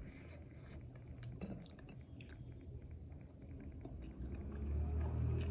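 Close-up chewing, with small wet clicks and smacks of the mouth. About four and a half seconds in, a low rumble fades in and grows louder.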